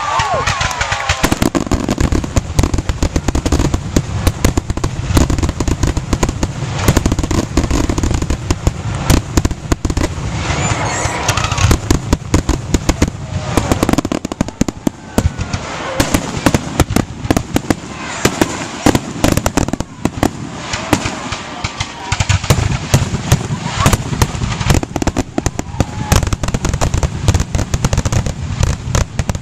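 Fireworks going off in a dense, continuous barrage: rapid sharp bangs and crackling, with heavy low booms underneath.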